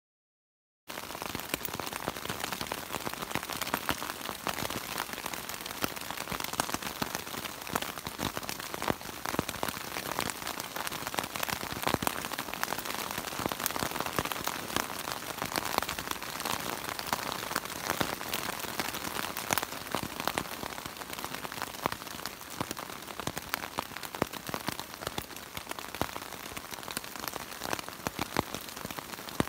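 Heavy rain falling on a tent, heard from inside: a dense, steady patter of drops on the tent fabric that starts abruptly about a second in.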